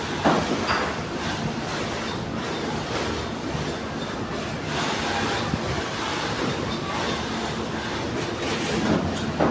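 Industrial sewing machine running steadily while stitching a leather glove cuff, with a continuous rhythmic clatter and hum and a few sharper knocks near the start and near the end.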